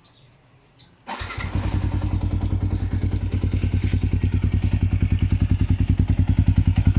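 Yamaha Sniper 150 motorcycle with an Exos R6 aftermarket exhaust: its single-cylinder four-stroke engine starts about a second in and settles into a steady idle with an even exhaust pulse.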